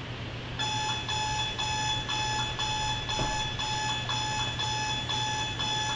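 Electronic alarm clock beeping steadily, about two short beeps a second, starting about half a second in.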